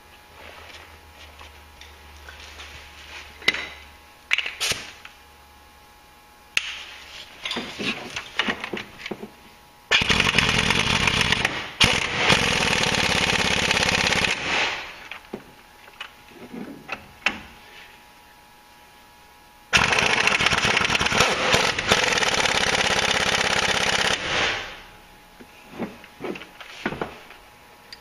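Air impact wrench running in two bursts of about four to five seconds each, the first with a short break in it, as it tightens the brake caliper bolts. Scattered clicks and knocks of tools and parts being handled come before, between and after the bursts.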